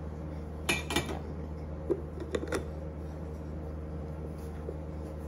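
Metal broom-handle tube sections clinking and clicking as they are fitted together and twisted by hand: a handful of light metallic clicks in the first three seconds, one ringing briefly, over a steady low hum.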